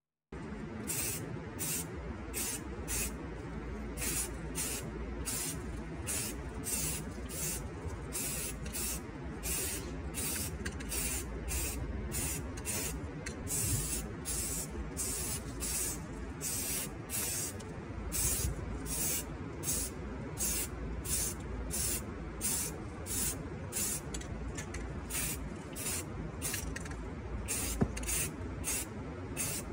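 Aerosol spray can spraying paint onto a small diecast metal truck cab in short repeated bursts, about two hisses a second, over a steady low rumble.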